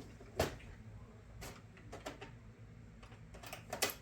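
A few light clicks and taps as a small rusty pocket knife is handled and worked on during cleaning, the sharpest a couple of quick clicks near the end.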